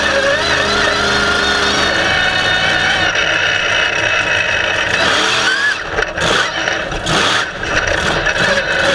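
Monster truck engine running hard at a steady pitch, heard close-up from the chassis. About five seconds in it breaks up into uneven revs with a couple of knocks, then settles back to a steady run near the end.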